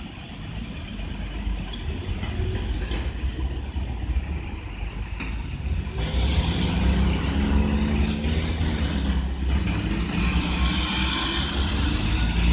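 A Yamatoji Line train running through a level crossing, growing louder, with a steady hum setting in and rising about halfway through.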